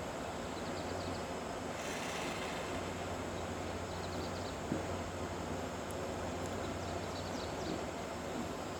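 Bulldozer's diesel engine running steadily with a low drone, with a single sharp knock a little over halfway through and a few faint high chirps over it.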